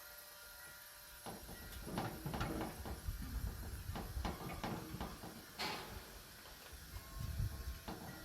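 Irregular knocks, clicks and rattles of hand work on a riding mower, parts and tools being handled, starting about a second in.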